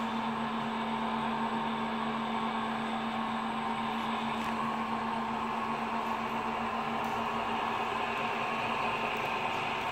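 1/14 Tamiya RC truck driving, its sound unit playing a steady simulated truck-engine hum through a small speaker.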